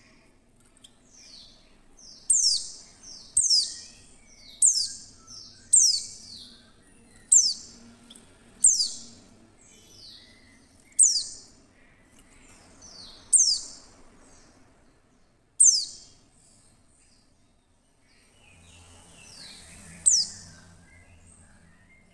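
Female white-eye (pleci) calling: a sharp, high chirp that falls quickly in pitch, repeated about once a second. The calls pause for a few seconds, then one more chirp comes near the end. This is the female call used to draw other white-eyes into song.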